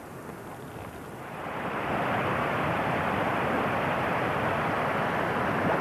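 Steady rushing of running water from a stream or river. It grows louder about a second and a half in, then holds even.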